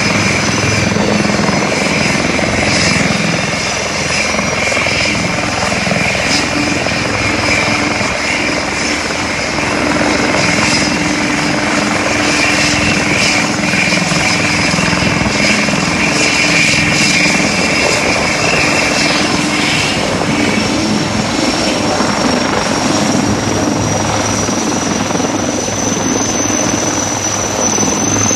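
Helicopters running on the ground, an HAL Light Combat Helicopter and a second helicopter beside it: a steady, loud turbine whine over rotor noise. About two thirds of the way through, one whine fades and the high whine slowly rises in pitch as the Light Combat Helicopter powers up and lifts into a hover near the end.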